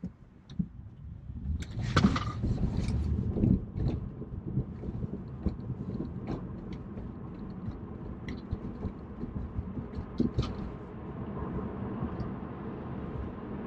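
Road and tyre rumble inside the cabin of a moving Tesla Model 3, an electric car with no engine note, with irregular knocks and rattles. The rattles are busiest about two to four seconds in.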